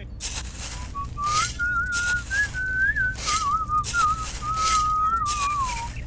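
A whistled tune on a single wavering line, over short, irregularly spaced scrapes of a small toy shovel digging into damp sand.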